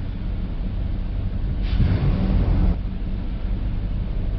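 2006 Nissan Titan's 5.6-litre V8 idling steadily, a low even rumble. A louder rush of noise rises over it for about a second near the middle.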